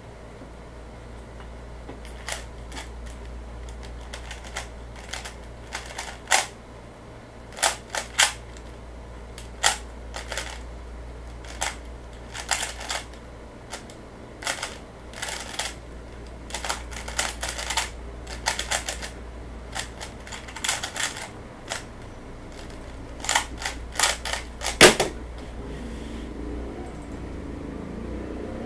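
Plastic 3x3 speedcube being turned fast in a timed solve: irregular flurries of sharp clicks and clacks as the layers snap round. Near the end comes one louder slap as the hands come down to stop the timer.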